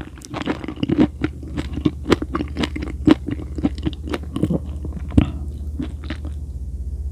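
Close-miked mouth sounds of chewing food, with crunchy, wet clicks that thin out about five seconds in, over a steady low hum.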